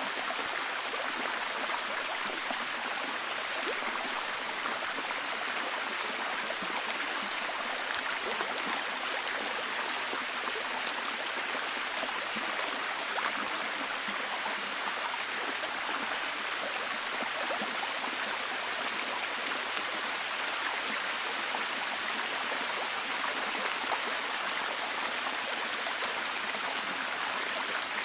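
Rainforest ambience: a steady hiss of water with many fine drop-like ticks, even in level throughout.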